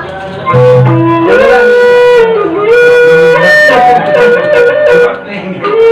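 Wayang Sasak gending played by a traditional ensemble: a flute-like melody holds notes and slides between them, with struck accents over it.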